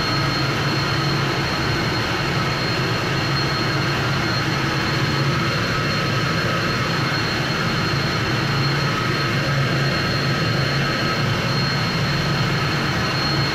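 Ship's engine-room machinery running with a steady, loud drone: a low hum under a constant high-pitched whine.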